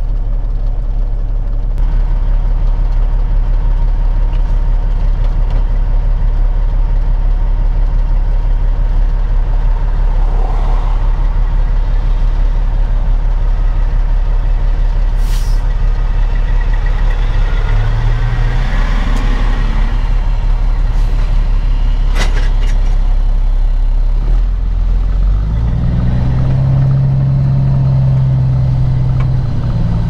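Heavy diesel engine of a Peterbilt 379 semi truck idling, heard from inside the cab. Another semi truck passes close by in the middle, and from about 24 seconds in the truck's own engine revs up as it pulls away.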